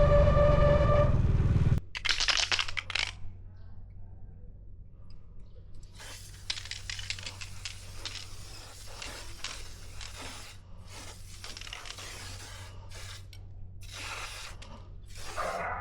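Motorcycle disc brake squealing with a steady, high-pitched tone that cuts off suddenly under two seconds in. A short spray hiss follows, then a long stretch of irregular scraping and rustling.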